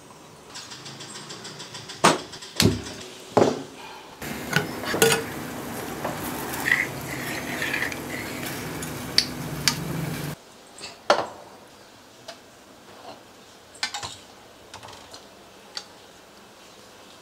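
Stainless-steel pots and a ladle clinking and knocking: a few sharp metal knocks, then a steady hiss with stirring from about four to ten seconds in that cuts off abruptly, then lighter taps of a ladle against steel dishes as sambar is served out.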